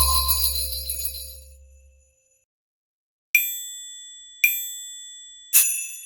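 The last chord of the piano track dies away over the first two seconds. After a moment of silence, a bright bell dings three times, evenly about a second apart, each strike ringing on and fading, as a count-in before the piece starts again.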